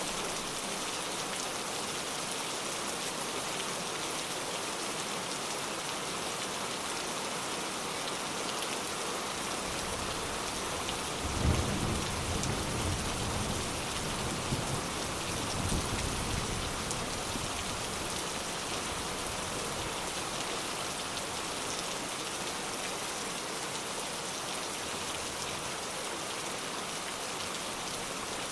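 Steady heavy rain falling, a constant hiss. Partway through, a rumble of thunder starts with a sudden crack and rolls on for several seconds before fading back under the rain.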